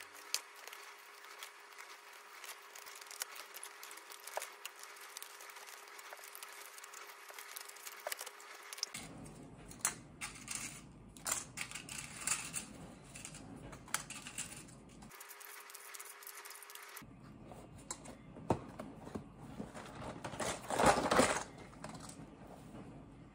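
Faint paper and cardboard handling: light rustling, taps and clicks as a cardboard box is folded together and small plastic boxes are set into it, with a louder rustling scrape near the end.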